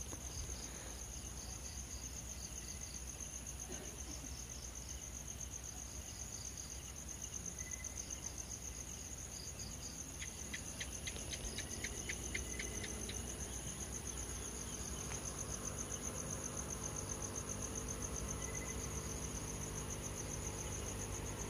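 Crickets chirring steadily in a high, finely pulsing trill, with a brief run of quicker chirps about ten seconds in. A faint low hum builds underneath in the second half.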